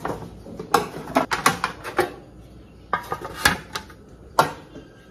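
Metal cake pans and baking trays clanking and knocking against each other and the counter as they are lifted out of a stack and set down, in several short clusters of knocks.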